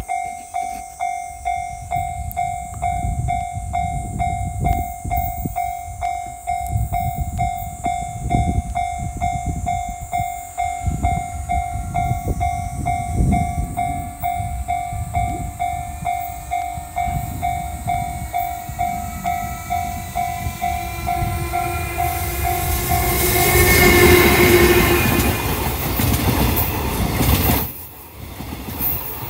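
A freight train of rail-carrying flat cars rolls through a level crossing, its wheels thumping rhythmically over the rail joints while the crossing's warning bell dings rapidly and steadily. The bell stops about 23 seconds in as a louder rush of train noise swells.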